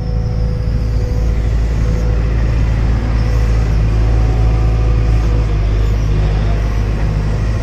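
Hydraulic excavator's diesel engine running steadily at working speed, a continuous low rumble with a faint steady hum above it.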